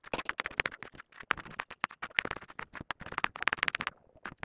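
Kitchen knife slicing tomatoes on a wooden cutting board: quick, sharp knocks of the blade striking the board, several a second, with a short pause near the end.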